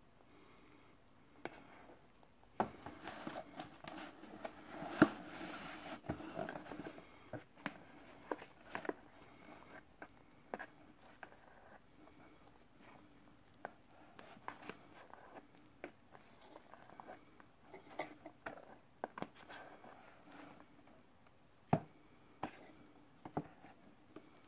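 Metal spoon scraping and clicking against a plastic ready-meal tray while stirring rice into thick curry sauce, with soft squishing. The busiest scraping comes a few seconds in, and sharp single clicks of the spoon on the tray stand out twice.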